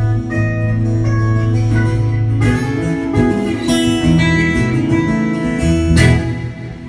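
Miked steel-string acoustic guitar played solo. A low bass note rings under picked notes for the first two and a half seconds, then comes a run of quicker picked notes and a strummed chord about six seconds in.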